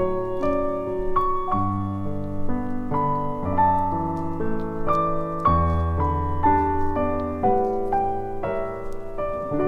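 Background piano music: a melody of single notes, about two a second, over slower-changing bass notes.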